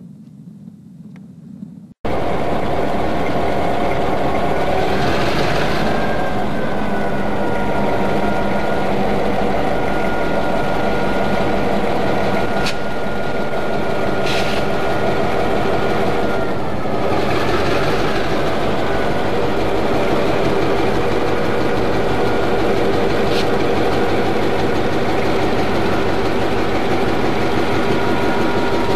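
Chicago Central diesel-electric locomotives, led by unit 8234, running under power as they move past with a coal train. Their engines make a loud, steady rumble that starts suddenly about two seconds in. A steady high whine is heard for about ten seconds in the middle, and there are a few sharp clanks.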